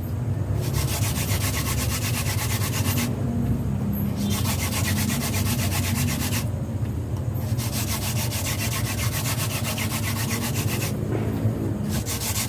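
Wooden hand-drill spindle spun fast between the palms, grinding into a wooden fireboard: a steady dry rasping of rapid back-and-forth strokes, making the heat and dust that build toward an ember. It breaks off briefly about every three to four seconds.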